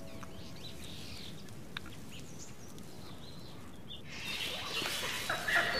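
Forest ambience with faint bird chirps. About four seconds in it turns suddenly louder and busier, a dense wash of chirping calls.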